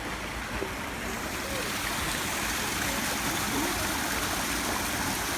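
Water of a mountain stream running over rocks: a steady rushing hiss, with faint voices in the background.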